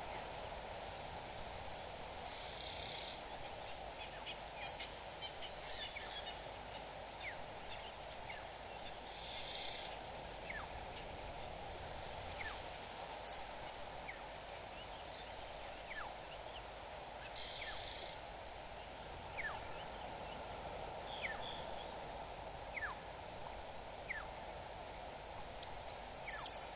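Wild birds calling at a waterhole: scattered short, high whistle notes that fall in pitch, with a few brief buzzy bursts, over a steady hiss.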